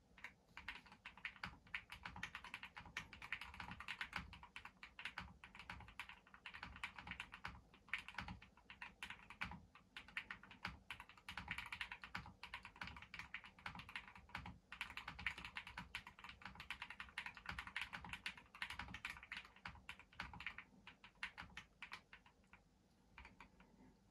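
Fast, continuous typing on a Jelly Epoch gasket-mounted custom mechanical keyboard with lubed Durock POM linear switches, a PC plate and case foam. It is a dense run of keystrokes with a few brief pauses, thinning out near the end.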